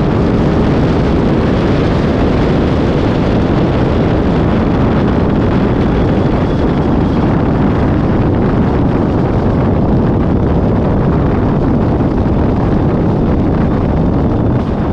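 Strong wind buffeting the microphone: a loud, steady rumble and hiss.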